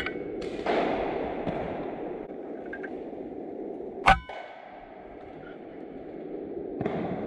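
A .22 PCP air rifle fires once about four seconds in: a single sharp report with a brief metallic ring, over steady low background noise. A faint click comes right at the start.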